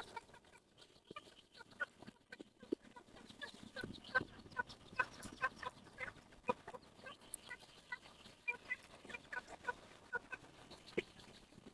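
Close-up eating sounds of a man chewing spicy young egg yolks: many short wet clicks and smacks. Short pitched clucking calls come in among them, more often in the middle and later part.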